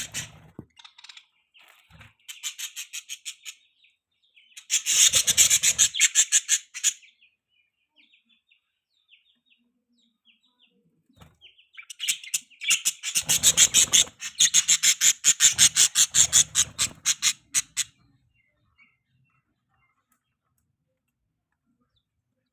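Budgies (budgerigars) chirping in bursts of fast, repeated chirps: a short burst about two seconds in, a louder one around five seconds, and a long one from about twelve to eighteen seconds, with quiet gaps between.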